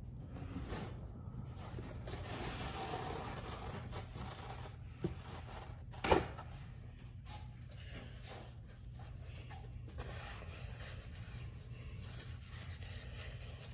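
Faint rustling and handling noises as a paper towel is fetched and handled, over a low steady hum, with a short click about five seconds in and a sharper knock about a second later.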